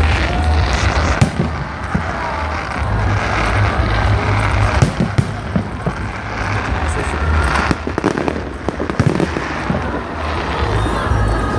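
Fireworks display: a dense run of sharp bangs and crackles over a continuous low rumble of booms.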